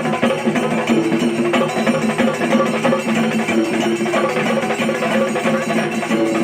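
Shinkari melam: a Kerala percussion ensemble of chenda drums beaten in fast, dense, unbroken rolls, with elathalam hand cymbals clashing along, at a steady loud level.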